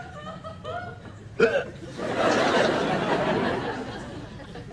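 Cartoon character's voice giggling in short bursts, then a sharp hiccup about a second and a half in. A loud, noisy rush follows for about two seconds and fades away.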